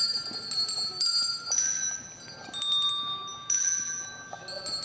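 Colour-coded tuned bells rung one at a time by several players, picking out a slow tune note by note. About seven strikes at different pitches, each ringing on and fading before or under the next.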